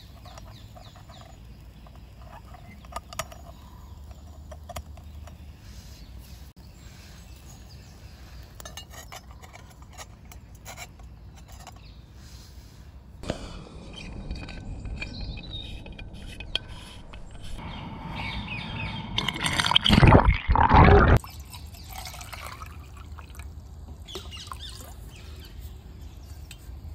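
Water poured from a bottle into a metal camping pot, starting about halfway in, growing louder and cutting off sharply near the end. Before the pour, a few light clicks.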